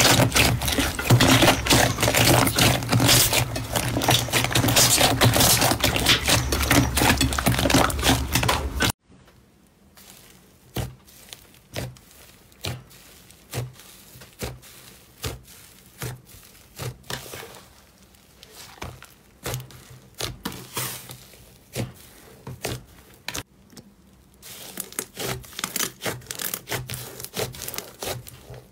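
Hands squeezing and kneading slime. Dense crackling and squishing for about the first nine seconds, then separate squelches about once a second as a thick black slime is pressed and folded, turning to dense crackling again near the end.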